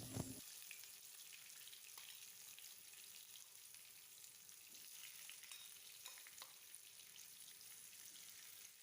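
Potato pieces frying in hot oil in a pan: a faint, steady sizzle with a few light crackles.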